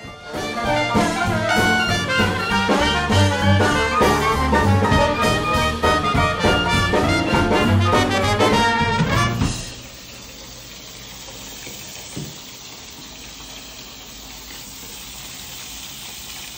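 Music plays for about the first nine and a half seconds and then stops, giving way to a steady rush of running water swirling and bubbling in a bowl.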